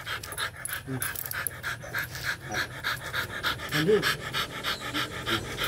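Rottweiler panting hard, a quick even rhythm of about four to five pants a second.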